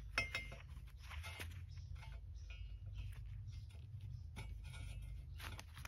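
Faint, scattered clicks and light rubbing as gloved hands work metal-collared suspension bushings and a steel collar into the pivot tubes of a powder-coated A-arm, starting them by hand. A low steady hum runs underneath.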